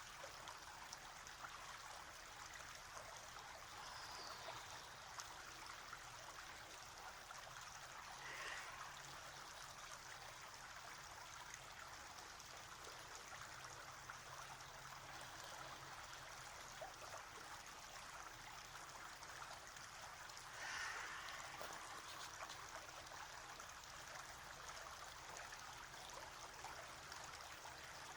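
A small brook running steadily and faintly, an even rushing babble of water, with two brief louder swells, one about a third of the way through and one about three-quarters through.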